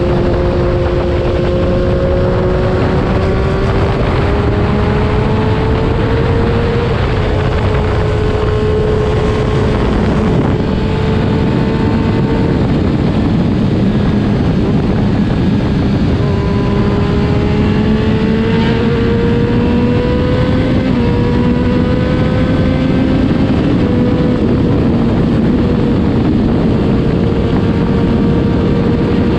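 Triumph Daytona 675R inline-three with a Yoshimura Alpha full exhaust, running at highway speed under a heavy blast of wind on the GoPro microphone. The engine note climbs slowly and drops back a few times, briefly fading in the middle, while the wind rush stays steady and loud.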